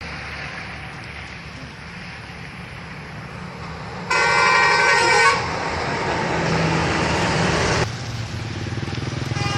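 Steady traffic noise from passing vehicles; about four seconds in, a bus's telolet horn sounds one loud blast of several tones together, lasting just over a second. The passing noise stays louder for a few seconds after, then drops suddenly.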